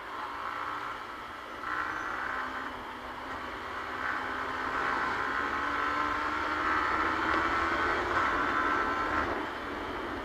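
Yamaha R15 V3's single-cylinder engine running under way. The engine note rises gradually and grows louder from about four seconds in, then drops off just after nine seconds as the throttle eases.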